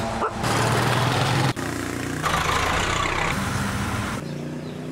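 City street traffic: motor vehicle engines running steadily with road noise. The sound changes abruptly several times.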